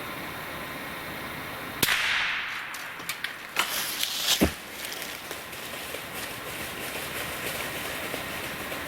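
A single crack from a Savage .22 LR rifle shot about two seconds in, with a short hissing echo after it. Small clicks and rustling follow, then a heavy thud about four and a half seconds in.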